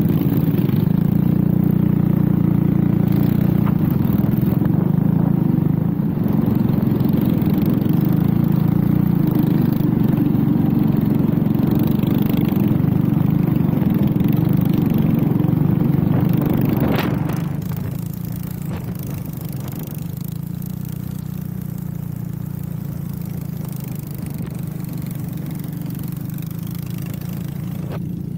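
Cyclekart's small single-cylinder engine heard onboard, running hard at steady revs. About two-thirds through there is a short knock, and the engine note drops to a lower, quieter run as the throttle eases.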